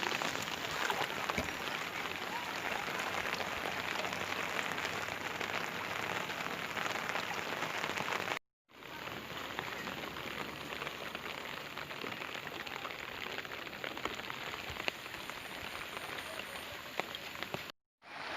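Steady rain falling, a dense even patter, broken twice by a brief silent gap, about halfway through and again near the end.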